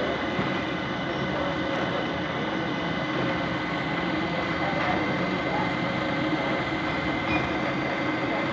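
3D printer running a print: a steady mechanical whir with high, steady whining tones that do not change.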